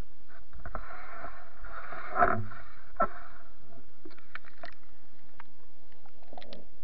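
Water sloshing and splashing around a camera as it is lowered into the water, with a louder slosh about two seconds in and a sharp knock about a second later, then scattered faint clicks and ticks.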